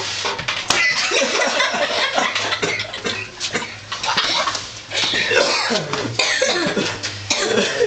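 People laughing hard in irregular, breathy bursts.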